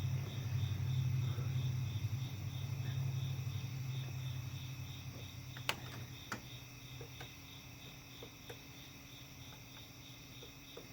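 Cricket chirping steadily, about four chirps a second, over a low hum that fades away over the first half. A few sharp clicks come near the middle.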